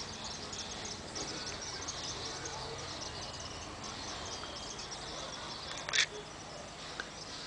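Dense, rapid high-pitched chirping of insects, steady throughout, with a single sharp click about six seconds in from the camera being handled.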